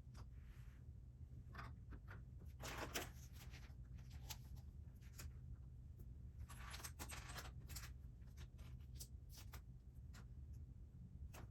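Lego pieces clicking and rattling as they are handled and pressed together, with two short rustles about three and seven seconds in, over a faint steady low hum.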